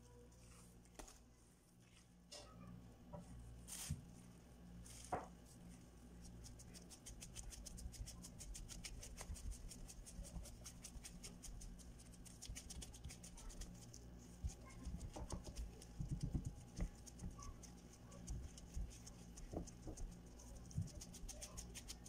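Faint soft pats, squishes and light clicks of gloved fingertips pressing and dimpling pizza dough out into a metal pan, busiest in the second half, over a low steady hum.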